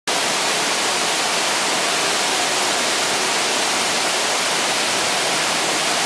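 Waterfall cascading down a rock face onto boulders: a loud, steady rush of falling water.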